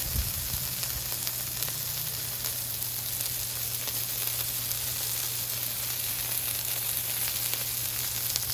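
Burger patties and buttered bread sizzling steadily on a flat-top griddle, an even crackling hiss of fat and butter frying.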